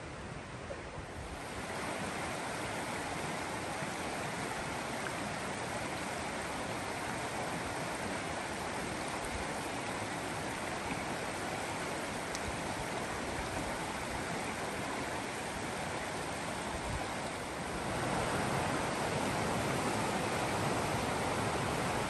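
Creek water rushing over rocks, a steady hiss of flowing water that steps louder about two seconds in and again near the end.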